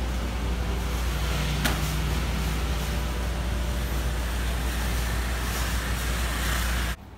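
Steady street-traffic noise, with scooters passing on a wet road and a constant low hum under an even hiss. A single short click comes about a second and a half in.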